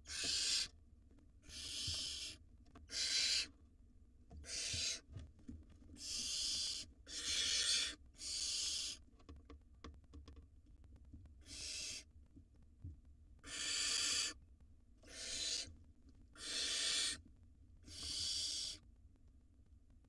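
Barn owl nestlings giving their hissing begging calls: about a dozen harsh hisses, each under a second long, with a pause of a couple of seconds around the middle.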